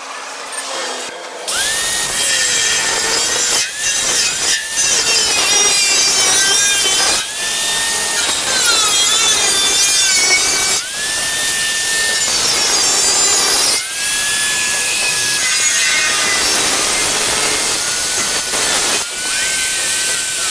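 Handheld electric power tool abrading a motorcycle's sheet-metal fuel tank, its motor whine cutting out and winding back up several times.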